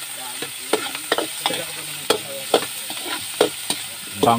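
Metal spatula scraping and knocking against a steel wok as aromatics and vegetables fry with a steady sizzle. The knocks come at irregular intervals, several in a row.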